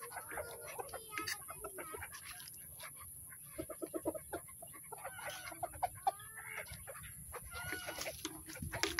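Backyard poultry clucking and calling in short bursts, with a quick run of clucks about four seconds in.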